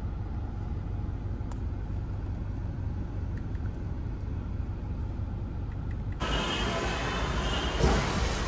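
Steady low rumble of a car idling in slow traffic, heard from inside the car cabin. About six seconds in it changes abruptly to louder, hissier noise, with a single thump near the end.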